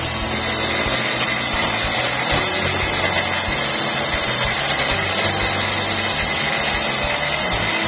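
Electric wet tile saw running with its diamond blade cutting steadily through a slab, a continuous high grinding whine.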